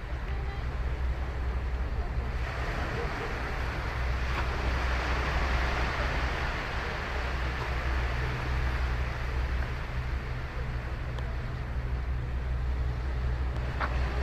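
Ocean surf breaking and washing up a sandy beach, a steady rush of waves that swells about two and a half seconds in, over a low rumble of wind on the microphone.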